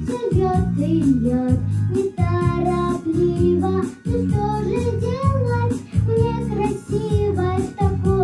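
A young girl singing a Russian pop song into a microphone over an instrumental backing track with a steady beat.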